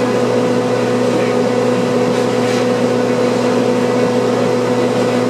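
Refrigeration unit running: a steady mechanical hum with a low drone and a higher steady tone that do not change.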